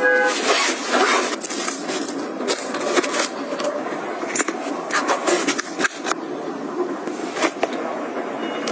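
Close-miked handling of packing items: a plastic bag crinkling and rustling, with many small clicks and taps.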